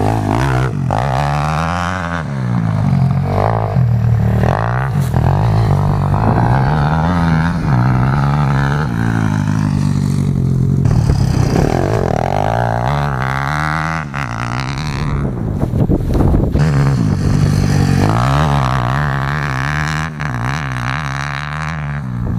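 MRF 170 pit bike's single-cylinder engine revving up and down as it is ridden through corners, the pitch rising and falling over and over with the throttle and gear changes.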